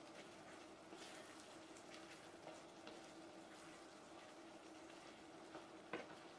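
Faint sounds of a wooden spoon stirring chicken pieces through simmering sauce in a frying pan: soft scrapes and light bubbling over a steady low hum, with a small knock of the spoon about six seconds in.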